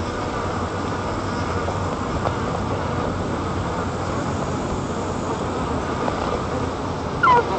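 Steady wind noise at a treetop nest camera, with one brief high call that falls in pitch about seven seconds in.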